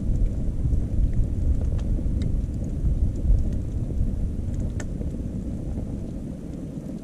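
Log fire burning: a few sharp crackles of burning wood, the loudest a little past the middle, over a steady low rumble that eases slightly near the end.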